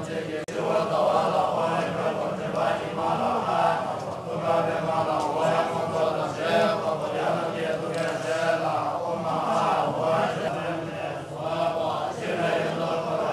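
A large group of Tibetan Buddhist monks chanting together, a continuous recitation of many overlapping voices that carries on without a break.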